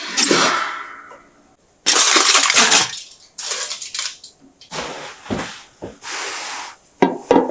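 Aluminium foil and a metal baking tray being handled at a toaster oven: a run of separate rustles and clatters, the loudest about two seconds in, with a few sharp clicks near the end.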